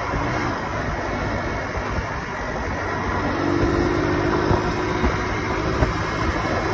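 Wind rushing over the microphone with a Honda commuter motorcycle engine running at cruising speed on a highway. A steady hum comes in about three seconds in.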